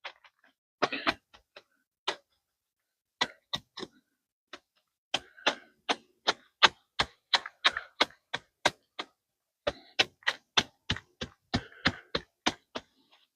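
A hand digging tool striking repeatedly into hard ground, short sharp hits, a few scattered at first, then in runs of about three a second with brief pauses between runs.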